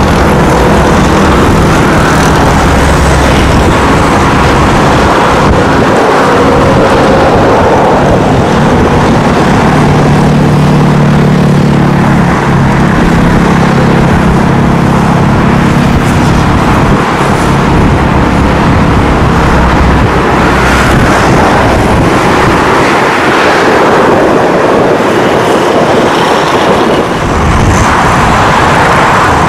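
Constant loud road traffic on a highway close by, with a steady engine hum in the middle, over the distant roar of a twin-engine jet airliner taking off on a wet runway.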